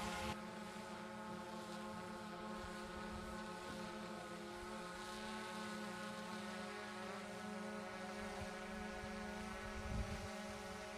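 A motor running steadily at constant speed, giving an even, unchanging hum, with a couple of low thumps near the end.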